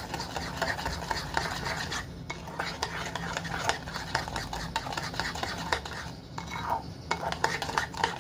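A spoon stirring and scraping a thick marinade around a bowl, a steady rasp with small clicks against the bowl that eases briefly twice. This is sugar being mixed into char siu sauce until it dissolves.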